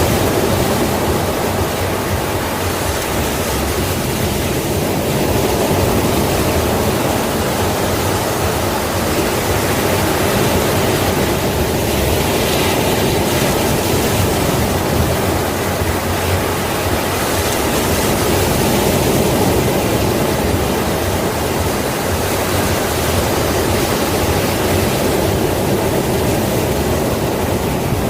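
Sea waves breaking and washing on the shore, a steady rush of surf that swells and eases every few seconds.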